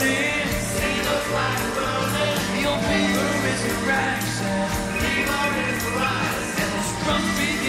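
Rock-and-roll song with a singing voice over a steady drum beat and bass line.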